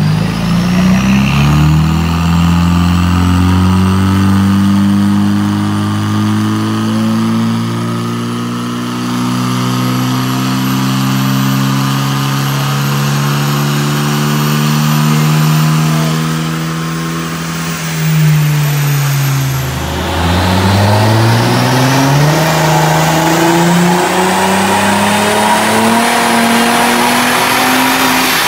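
Car engine on a rolling-road dyno, pulling slowly and steadily up through the revs in one gear for about eighteen seconds. The revs then fall back sharply and start climbing again.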